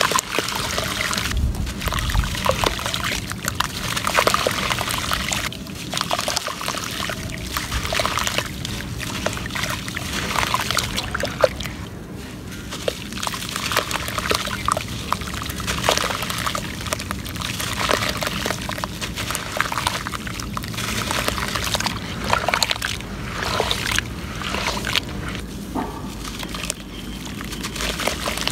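Dry red dirt crumbled by hand, the grains and clumps falling and splashing into water in a clay pot, coming and going in uneven spells with crisp crackles.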